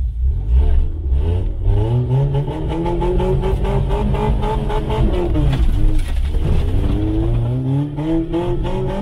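Off-road 4x4's engine, heard from inside the cab, revving up under load as it crawls over rough ground. The pitch climbs for about five seconds, eases off briefly around six seconds in, then rises again.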